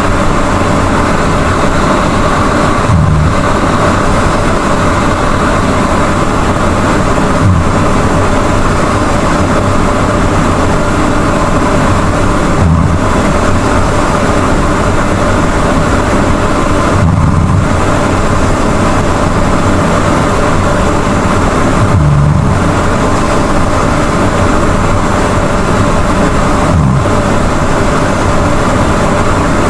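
A person snoring loudly in a regular breathing rhythm, about one cycle every four and a half seconds, six in all, over a steady, heavy noise.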